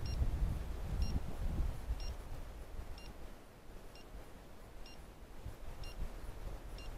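Hunting dog's beeper collar sounding a short, high electronic beep about once a second, about seven times, over a low rumble. The fast steady rate is the collar's point signal, given while the dog stands still.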